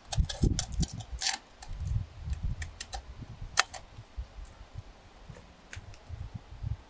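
Small clinks and ticks of glass as a cracked glass wine bottle is handled and set down on cardboard among its broken shards. There are several sharp clicks in the first second and a louder one a little past three and a half seconds in, over a low rumble.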